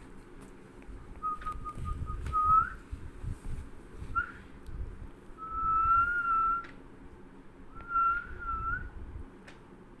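A person whistling four short phrases. The longest lasts about a second, and some waver or slide upward at the end. Low rustling and handling noise runs underneath.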